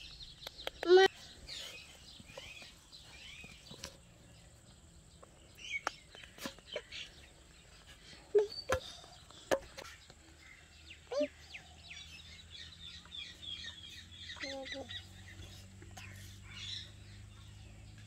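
Rose-ringed parakeet giving one loud, steeply rising squawk about a second in, then a few short scattered calls and clicks. Wild birds chirp faintly in the background in the second half.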